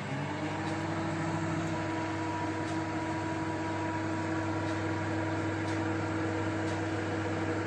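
Panasonic convection microwave oven running on its microwave function at full power (P100): a steady hum, settling in pitch just after it starts.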